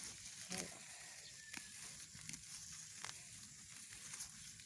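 Faint rustling of corn and weed leaves with scattered light clicks as a hand brushes through the plants, over a faint steady outdoor background.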